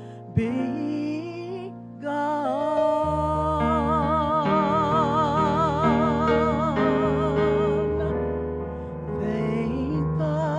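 A woman singing a gospel solo with long held notes and a strong vibrato, over keyboard accompaniment with sustained bass notes. The music dips briefly about two seconds in.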